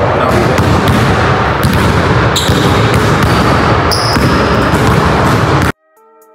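Basketballs bouncing on a hardwood gym floor with sharp knocks over a steady, loud, echoing noise. About five and a half seconds in it cuts off abruptly and soft plucked-guitar music begins.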